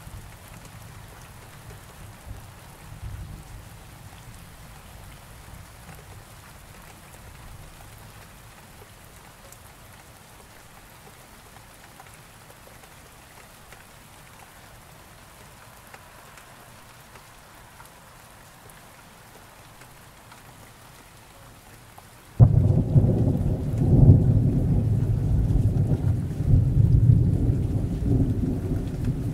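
Steady rain, with a low rumble of thunder dying away over the first few seconds. About 22 seconds in, a loud thunderclap breaks in suddenly and keeps rolling as a deep rumble.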